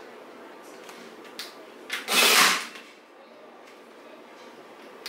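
Ryobi staple gun firing once, about two seconds in: a single loud, sudden shot driving a staple through rubber toolbox liner into the wooden box rail, just after a faint click.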